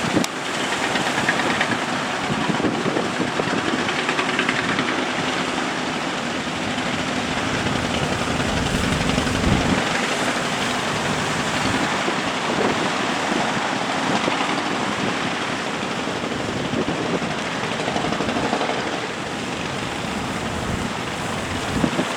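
Fishing boat engine running steadily under heavy wind noise on the microphone and surf.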